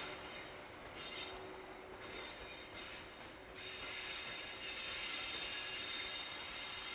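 Distant wheel squeal from a slow-moving locomotive-hauled train in a rail yard: several high, steady squealing tones together over a low rumble. They ease off a second or so in and come back stronger from about four seconds in.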